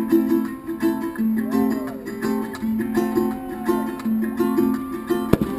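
Guitar-led music with strumming, played as the pyromusical's soundtrack. One sharp bang near the end.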